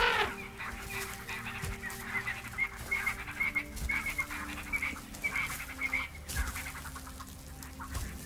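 Birds calling in a rapid series of short, high, honking notes, with a louder call at the very start, over a faint low steady drone.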